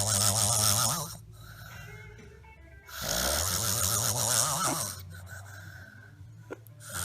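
A person snoring: two long rasping snores of about two seconds each, with quieter breathing between them.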